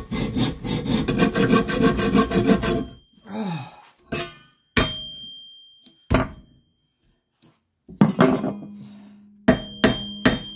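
A hacksaw sawing fast through a cast aluminium engine cylinder in a vise for about three seconds, then a few separate knocks and, near the end, a string of hammer blows on the casting, each ringing briefly with a high metallic note.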